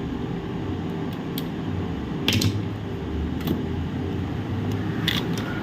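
Steady mechanical hum of a room fan, with a few light clicks and taps from a laptop motherboard and its connectors being handled.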